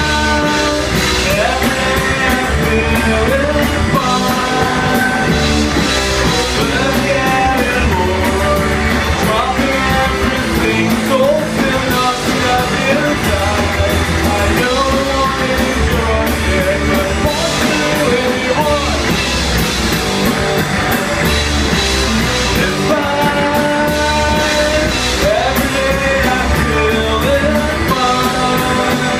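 A live rock band plays a song at a steady loud level, with electric guitar, bass guitar and drum kit under a sung vocal line.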